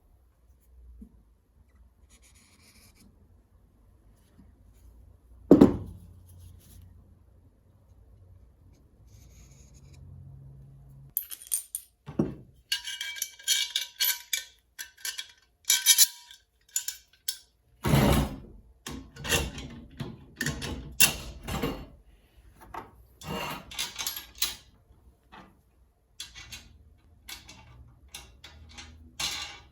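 Metal parts and hardware being handled: a heavy knock about five seconds in, then from about the middle a rapid run of metallic clinks and knocks.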